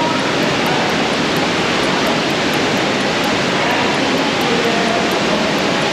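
Waterfall of the Varone gorge: falling water making a loud, steady, even rush.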